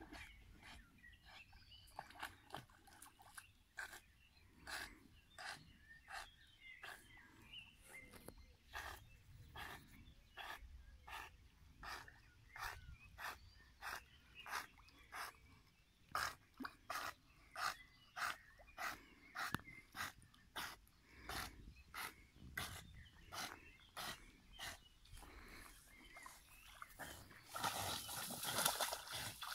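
A small dog swimming with a stick in its mouth, puffing short breaths about twice a second. Near the end there is a louder rush of splashing as it reaches the bank.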